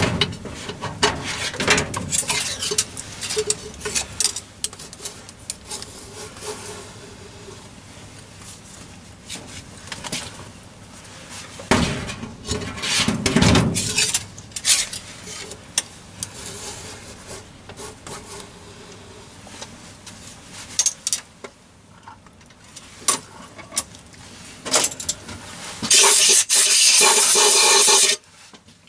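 Metal tools and lathe parts handled at a Myford lathe headstock: scattered clinks, knocks and scrapes of steel on steel, with heavier clunks a little before the halfway point. Near the end comes a louder continuous rasping scrape lasting about two seconds.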